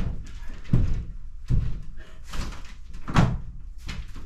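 A series of about six dull knocks and thuds, roughly evenly spaced, the loudest about three seconds in.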